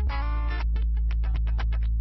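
Background music: a rhythmic pattern of plucked, guitar-like notes over a steady held bass.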